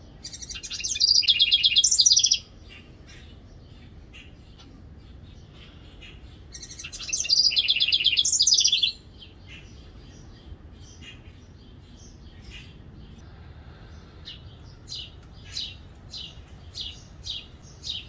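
House wren singing: two loud songs of rapid high trills, each about two seconds long, several seconds apart, then a string of short sharp call notes near the end.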